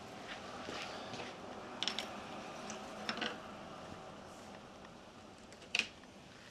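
Metal hand tools and fork parts being handled: a few separate clicks and clinks, the sharpest near the end.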